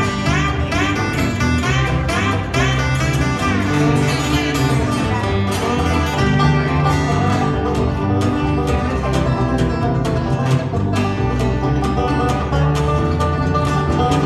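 Instrumental break in a bluegrass-style country song: acoustic guitar and banjo picking over a steady beat, with no singing.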